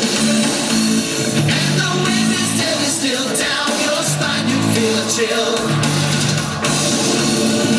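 A Halloween pop song with a singer and a rock beat, played loudly and continuously.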